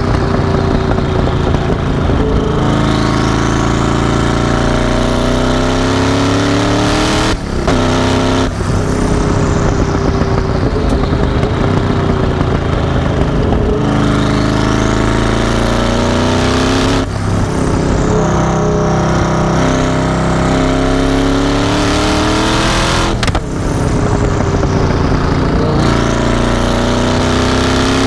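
Twin-turbo 7.3-litre Chevy LS7-based V8 of a Mazzanti Evantra Millecavalli pulling hard in repeated bursts, engine pitch sweeping with each run, while a high turbo whistle rises over it several times. Brief sharp breaks in the sound, about four of them, cut between the pulls.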